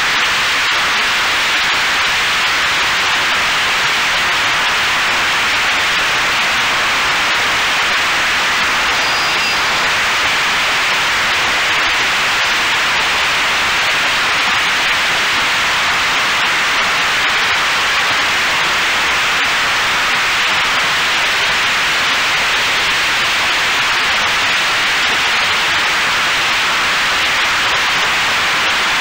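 Steady, even hiss like radio static, with no motor or propeller tone standing out.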